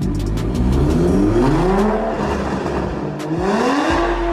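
Toyota GR Supra with an aftermarket exhaust being revved while standing still. The engine note climbs and falls back, then climbs again near the end, with a few sharp exhaust pops.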